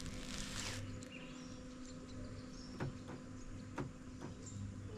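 Faint outdoor ambience. An insect-like high hiss fades out about a second in, leaving a few short bird chirps and two light clicks over a low steady hum.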